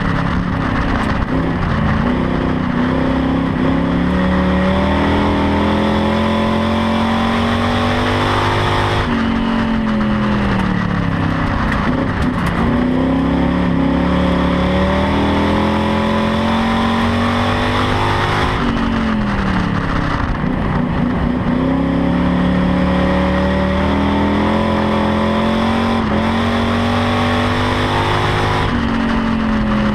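Chevrolet Camaro stock car's engine at race speed on a dirt oval. The engine note falls away as it lifts for the turns and climbs again under acceleration down the straights, repeating lap after lap about every nine to ten seconds.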